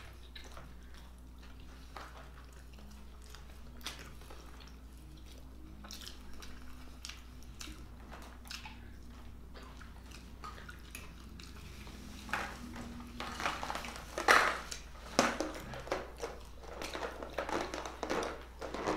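Chewing and biting of burgers, with small clicks and rattles of plastic takeout containers being handled over a low steady hum. The container sounds get busier and louder about two-thirds of the way through, with one sharp knock standing out.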